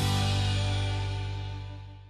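Background music: a held chord rings out and fades steadily away after the beat stops.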